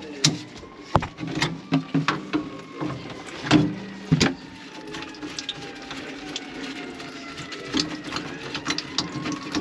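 A small machine running with a steady hum, broken by irregular clicks and knocks.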